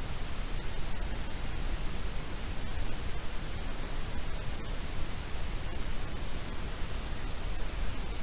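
Steady static hiss from the recording's microphone, with a few faint clicks.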